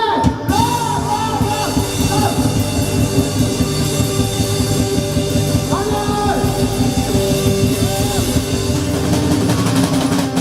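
Live rock band playing loudly with a drum kit, a voice singing a gliding melody over it.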